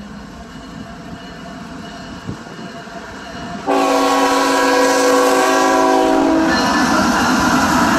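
CSX diesel freight locomotive's air horn sounds one long chord, starting suddenly about four seconds in and holding for nearly three seconds. As the horn stops, the heavy rumble of the locomotive passing close by takes over.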